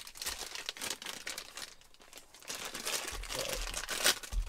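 Clear plastic packaging bag crinkling as it is handled, with a sharper crackle near the end.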